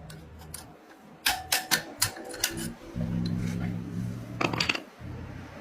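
About half a dozen sharp metal taps and clicks in quick succession a little over a second in, then a steady low hum with a few more quick clicks near the end.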